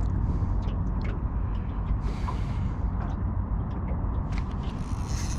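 Steady low rumble of wind and water around a small aluminium boat, with scattered light clicks and a short hiss about two seconds in.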